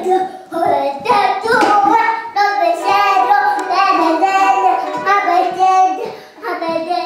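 A young child singing loudly, with long held notes through the middle.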